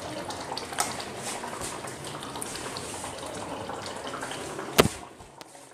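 Water running steadily from a kitchen tap. About five seconds in there is a sharp knock, and the running water stops.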